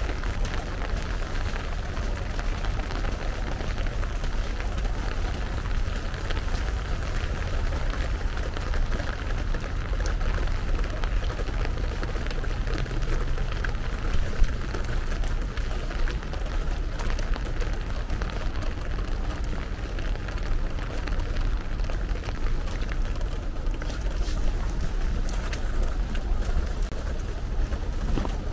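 Steady rain falling, with many small raindrop ticks over a constant low rumble. One slightly louder tap comes about halfway through.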